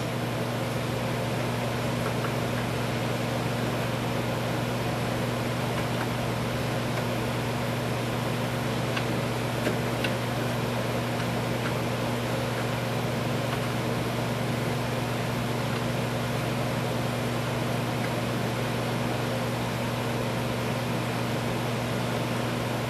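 Steady low machine hum holding an even pitch, with a few faint light clicks about nine to ten seconds in.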